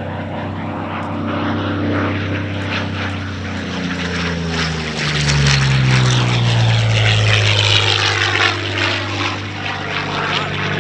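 A Curtiss P-40N Warhawk's liquid-cooled Allison V12 engine and propeller in flight. The engine note drops in pitch about halfway through as the fighter passes, then settles into a steady, loud drone.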